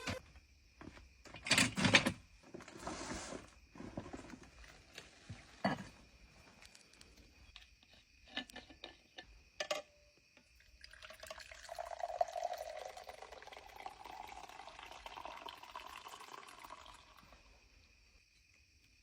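A few sharp knocks and clatters, then liquid poured into a cup for about six seconds, the pitch of the pour rising steadily as the cup fills.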